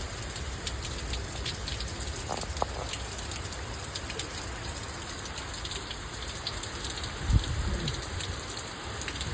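Hurricane rain falling hard and pattering on surfaces, with wind rumbling on the microphone and a stronger gust about seven seconds in.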